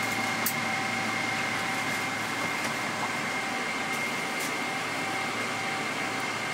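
Steady airliner cabin noise in a Boeing 777-300ER: rushing ventilation air with a steady high whine and a fainter lower tone, and a small click about half a second in.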